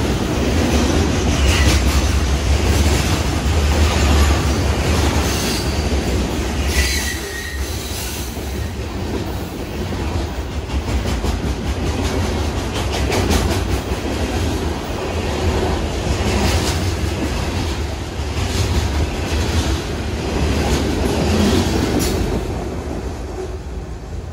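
CSX freight train cars rolling past close by: a steady rumble with wheels clacking over the rail joints, and a brief high wheel squeal about seven seconds in. The sound fades near the end as the last cars clear.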